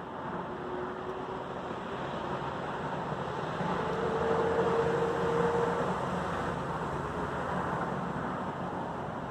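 Road traffic noise: a steady rush that swells as a vehicle goes by, loudest about four to six seconds in.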